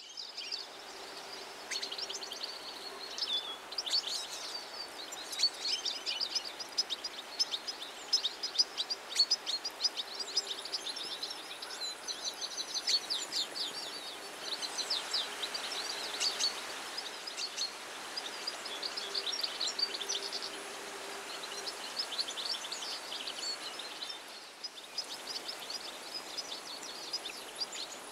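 European goldfinch singing: a long, rapid twittering of high chirps and trills over a steady background hiss.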